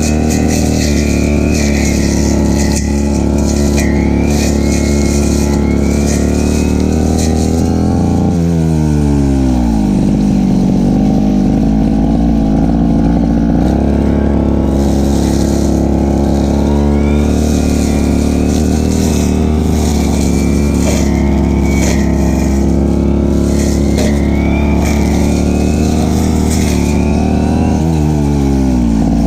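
Stihl FR3001 backpack brush cutter's two-stroke engine running at high revs. Its pitch falls sharply as the throttle is eased about eight seconds in, climbs back a few seconds later, and falls again near the end.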